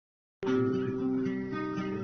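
Acoustic guitar being played, with several notes sounding together over a moving lower line. It starts abruptly about half a second in.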